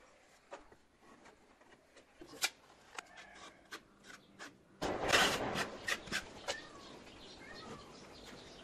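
Mortar work on masonry blocks: light clicks and scrapes of a trowel and block handling, then about five seconds in a louder stretch of scraping with several sharp taps.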